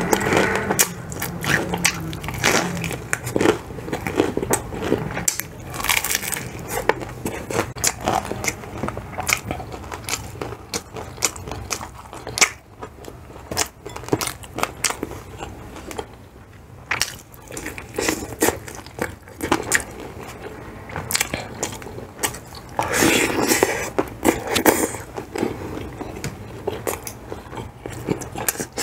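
Close-miked biting and chewing of crispy spicy fried chicken: irregular crunching and crackling of the fried breading, with a louder run of crunches near the end.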